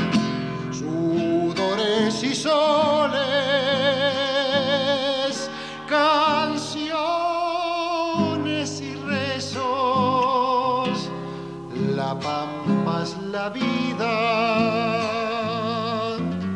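Male folk singer holding long notes with strong vibrato over an acoustic guitar accompaniment, in an Argentine folklore song.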